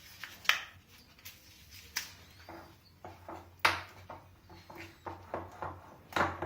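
Scattered light clicks and taps as a microwave idli mould is handled and greased, a few separate knocks with the sharpest about three and a half seconds in.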